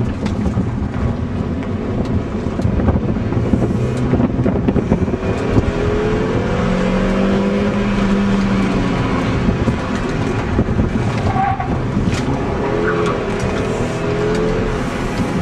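A 2005 MINI Cooper's 1.6-litre four-cylinder engine running hard under load, its pitch rising and falling as the car accelerates and slows through an autocross course, heard from inside the cabin.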